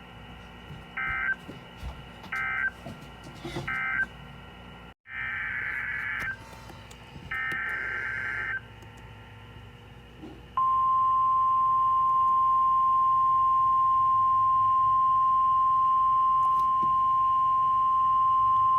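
NOAA Weather Radio alert signalling: three short buzzy digital data bursts about a second and a half apart, then two longer data bursts (the SAME coded alert header), then the steady 1050 Hz warning alarm tone, which starts about ten and a half seconds in and holds loud and unchanging.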